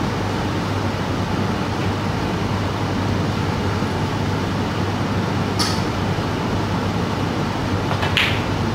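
Steady droning room noise with a low hum. A little over halfway through comes a sharp click as the cue tip strikes the cue ball, and near the end a brighter click of the cue ball hitting the brown.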